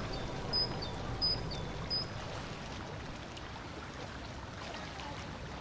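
Small fountain jet splashing steadily into a still reflecting pond, a soft continuous trickle. Three short high chirps sound in the first two seconds.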